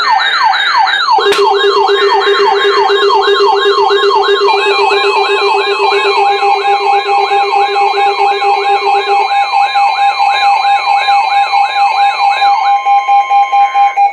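Electronic alert siren on a weather-alert receiver, warbling up and down about three times a second over a steady high alarm tone, sounding for a tornado warning. A lower steady tone joins for about eight seconds, and the warble stops near the end while the steady tone holds on.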